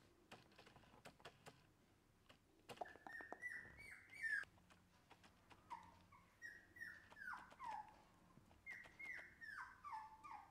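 Shiba Inu puppy whimpering: three bouts of short, high whines, each dropping in pitch, with its claws ticking on a tiled floor in between.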